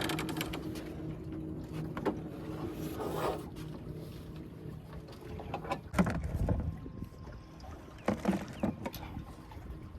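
Scattered knocks and rattles of outdoor fishing gear being handled, over a steady low hum that fades over the first few seconds.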